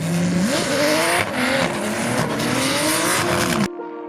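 Drift car's engine revving up and down with tyres squealing, cutting off suddenly near the end.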